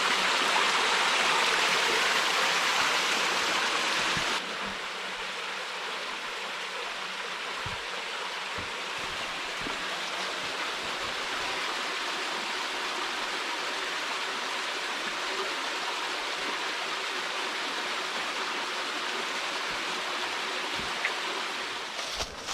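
Spring water running out of a small cave in the mountainside, a steady rush of water that drops suddenly to a quieter flow about four seconds in.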